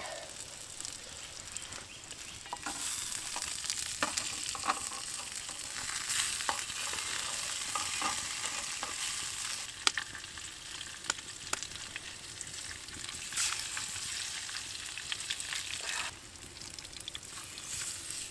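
Scarlet elf cup mushrooms with primrose and wood sorrel frying in oil in a pan, sizzling steadily, with scattered clicks of a utensil stirring against the pan. The sizzle grows louder about three seconds in and drops back near the end.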